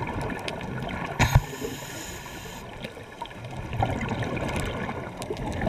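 Scuba diver breathing through a regulator underwater: a sharp hissing inhale about a second in, then a longer rush of exhaled bubbles from about four seconds in.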